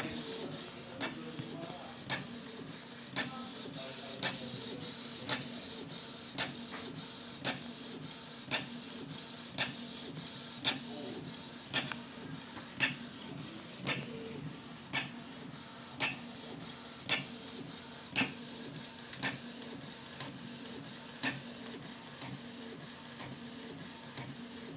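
Inkjet printer printing a page: a steady mechanical whir with a sharp click about once a second as the print head passes and the paper advances.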